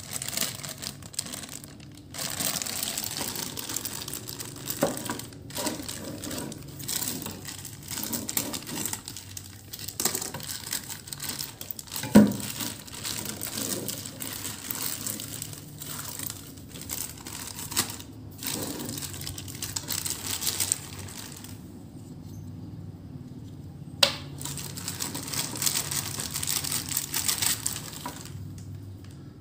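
Clear plastic packaging bags crinkling and rustling as they are handled and pulled off small figure parts, in irregular spells with short pauses. A sharp knock stands out about twelve seconds in, and a second sharp click comes about twenty-four seconds in.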